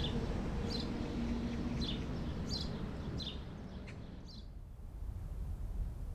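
A small bird chirping: about six short, high chirps at an even pace, stopping about four and a half seconds in, over a low steady rumble.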